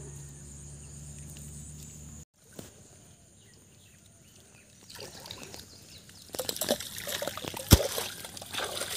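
Muddy water splashing and sloshing as clods of soil are dropped into a flooded breach in a paddy-field bund to seal it so the field holds water. The splashing starts about halfway through and grows busier, with one sharp slap of a clod into the water near the end.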